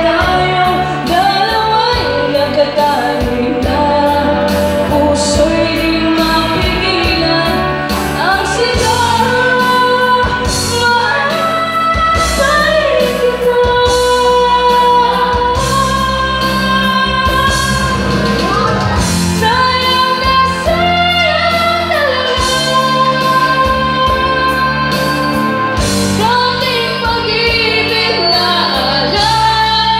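A person singing a slow ballad into a handheld karaoke microphone over a loud backing track, with the amplified voice and music playing through the room's speakers.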